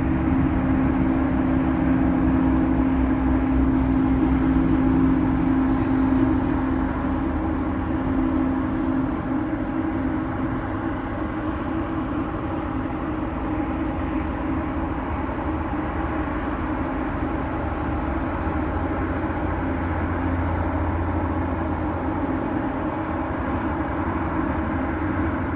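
Embraer E195-E2's Pratt & Whitney PW1900G geared turbofan engines running at low taxi power: a steady hum with a strong low tone that eases about nine seconds in, over a low rumble.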